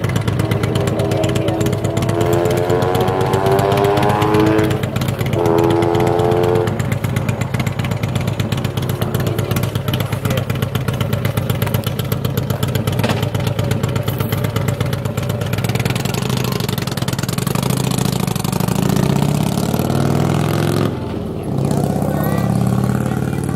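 Motor vehicle engine running throughout, with rapid firing pulses. About two seconds in it rises steadily in pitch as it accelerates, then holds a steadier note, and it changes pitch in steps again near the end.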